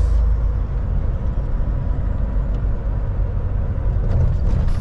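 Steady low rumble of a semi truck's diesel engine and tyres while cruising on a highway, heard from inside the cab, with faint steady tones above the drone.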